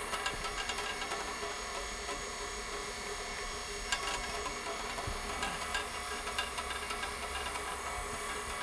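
Rotary floor buffer running with a 100-grit sanding screen, scuff-sanding a cured epoxy floor: a steady motor hum under a scrubbing hiss, with a light knock about four seconds in.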